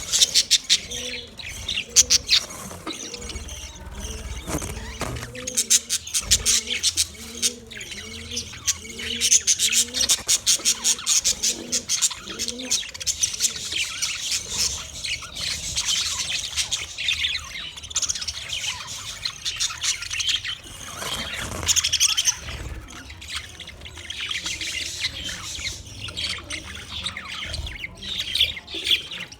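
Budgerigars chattering and warbling in rapid high chirps that come in bursts. A lower call repeats about twice a second during the first few seconds.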